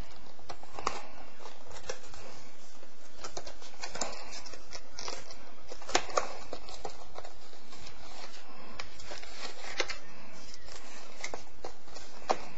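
Cardboard box and clear plastic tray of a computer mouse's packaging being handled and worked open, giving scattered crinkles, scrapes and sharp little taps over a steady hiss.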